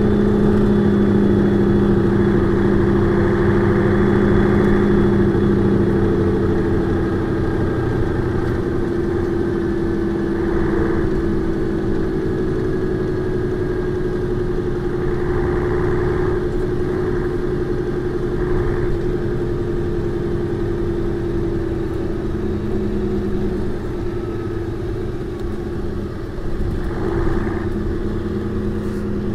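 Mercedes-Benz O405 N2 city bus's diesel engine running at a steady, slightly wavering pitch. A few short rushing noises come and go over it.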